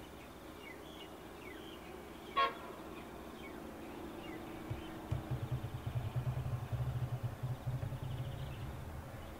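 A single short toot of a diesel locomotive's horn about two seconds in, over faint bird chirps. From about five seconds a low, pulsing rumble sets in and fades away near the end.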